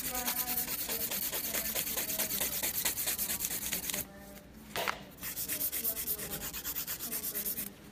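A hand nail file rubbing back and forth across a gel nail in rapid, short strokes, shaping it. The strokes pause for about a second midway, then resume.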